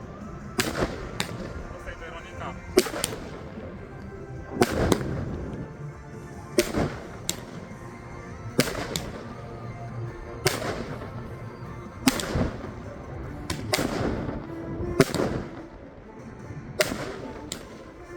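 Consumer firework battery (Blackboxx Glamour) firing shot after shot, with sharp bangs coming in pairs roughly every two seconds, each followed by a short crackling tail.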